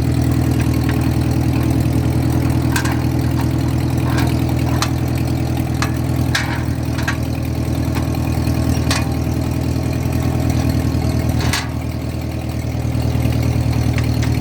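Ford 8N tractor's four-cylinder flathead engine running steadily at a fast idle, with a few sharp clicks over it. Its note dips briefly near the end, then comes back up.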